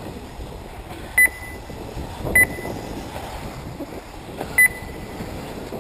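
Three short, high electronic beeps from the race's lap-timing system as RC buggies cross the timing loop: two about a second apart, the third about two seconds later, over steady background noise.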